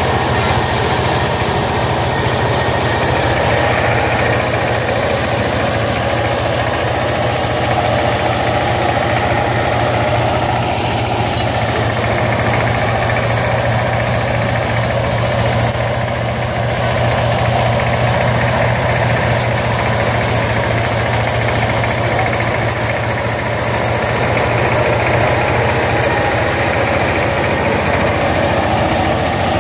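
Engine-driven paddy thresher running steadily: a small engine's constant hum with the threshing drum's whirring and rattling as rice stalks are fed in.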